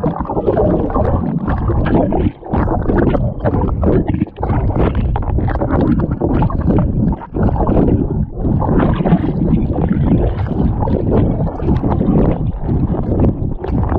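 Water splashing and sloshing close to the microphone as a person wades chest-deep in cold water, with heavy, irregular buffeting and rustling on the mic.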